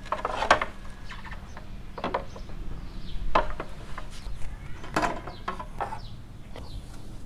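Red plastic lower fairing cover of a Kawasaki Vulcan Voyager being worked loose from its clips by hand: a handful of scattered plastic clicks and knocks.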